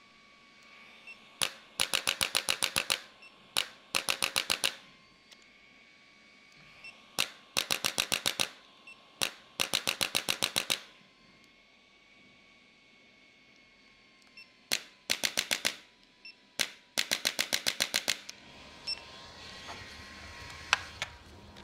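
Handheld electric chiropractic adjusting instrument firing rapid runs of clicking strikes against the lower spine, about seven a second. There are six runs of a second or so each, with pauses and a few single clicks between them.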